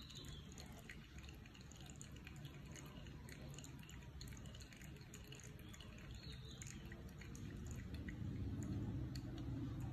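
Espresso dripping and trickling in thin streams from a hand-pressed manual espresso maker into a glass of milk, faint, with small scattered ticks. A low rumble grows louder near the end.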